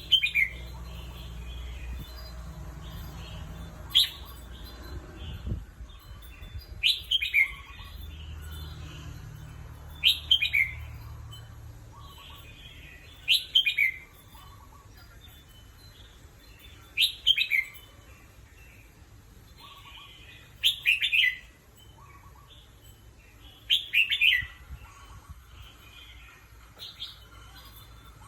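Red-whiskered bulbul singing: short, loud phrases repeated about every three to four seconds.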